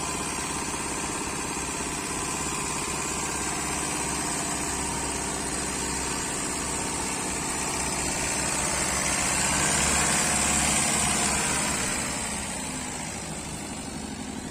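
Car engine idling just after being jump-started from a portable jump-starter power bank, running steadily, growing louder for a few seconds past the middle before settling back.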